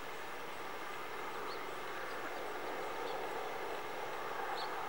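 A steady rushing noise without rumble or strong swells, with three faint high chirps about a second and a half apart.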